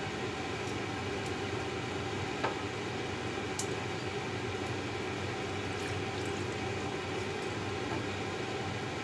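Prawns and squid simmering in a lidded pan: a steady bubbling hiss, with a couple of brief clicks about two and a half and three and a half seconds in.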